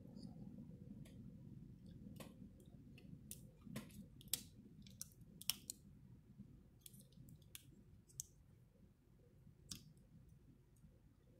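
Irregular sharp clicks and light taps of hard plastic parts of a 3D-printed figure being handled and moved, over a faint low hum.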